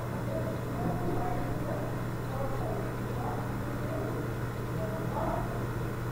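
Steady low hum of room noise, with faint, brief voice-like sounds scattered over it.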